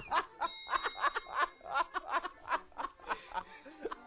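A man laughing hard in a quick run of breathy ha-ha-ha pulses that fade towards the end. A short bell-like ding sounds about half a second in.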